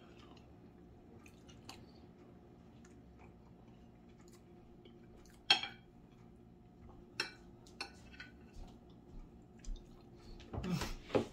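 Eating utensil clinking lightly against a plate: sparse clicks over a faint steady hum, with one sharper clink about halfway through and a few more light taps near the end.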